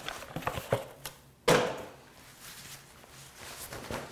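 A fabric grill cover being unfolded and handled: a few small rustles and clicks, then a sudden loud swish about a second and a half in as it is shaken open, followed by softer rustling.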